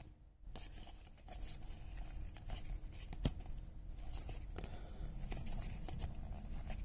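Soft rustle and scrape of 2021 Topps baseball cards being slid one behind another through a hand-held stack, with small ticks of card edges and one sharper click a little over three seconds in.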